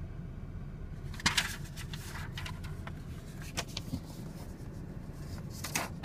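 Low, steady rumble of a car driving slowly, heard from inside the cabin. Short clicks and rustles sound over it, the loudest about a second in and others near the middle and near the end.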